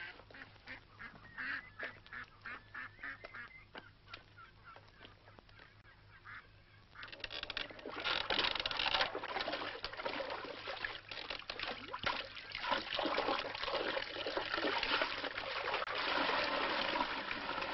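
A flock of farmyard ducks or geese calling: scattered short calls at first, then from about seven seconds in a louder, dense chorus of honks and quacks.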